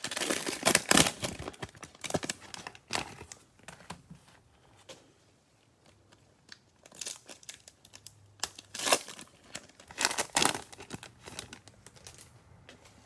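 Cellophane wrapper of a trading-card cello pack crinkling and tearing as it is opened by hand, with irregular rustling bursts. The loudest crinkling comes in the first second and again about nine and ten seconds in.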